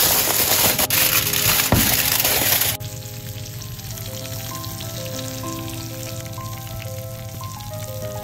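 Aluminium foil crinkling as hands press it down over a baking dish, over background music with a gentle melody; the crinkling stops about three seconds in, leaving only the music.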